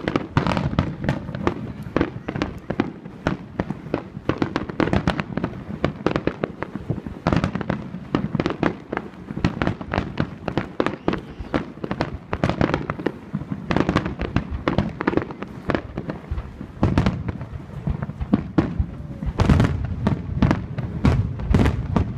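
Fireworks finale: a rapid barrage of aerial shells bursting, several booms a second, starting suddenly and growing louder and denser near the end.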